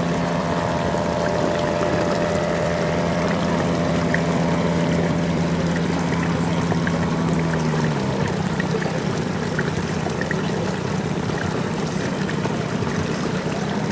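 Steady hum of a radio-controlled model ship's electric motor, dropping in pitch and dying away about eight seconds in, over a steady rushing, water-like noise.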